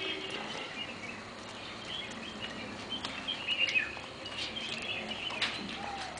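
Scattered short, high chirping calls from animals, with a few sharp clicks between them.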